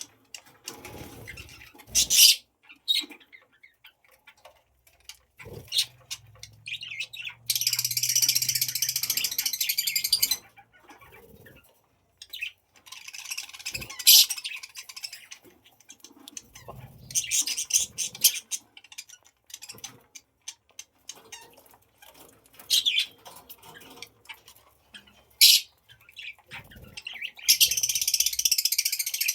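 Budgies chirping and chattering: several bursts of dense, high chatter lasting a few seconds each, with sharp single chirps in between.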